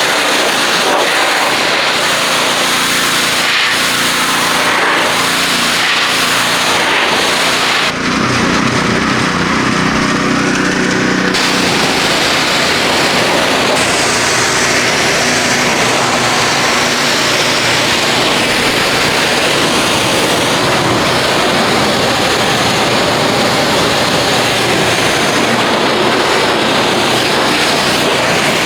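A 3,200 psi pressure washer's engine running steadily under the loud hiss of its wand spraying water to rinse soap foam off a truck. About eight seconds in the high hiss thins for about three seconds, leaving the engine hum to the fore.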